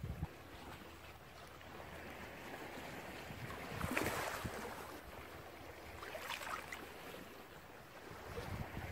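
Ocean surf washing, an even rushing noise that swells about four seconds in and again around six and a half seconds.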